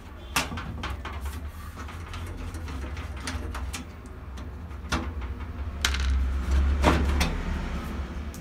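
Handling noise: a few sharp clicks and knocks over a steady low rumble, the loudest knocks coming twice near the end.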